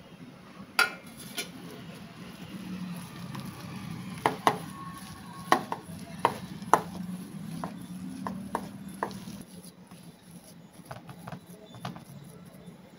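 Boiled potato being hand-mixed with spices in a stainless steel bowl: soft mashing with repeated sharp clinks of the steel bowl, thickest in the middle of the stretch.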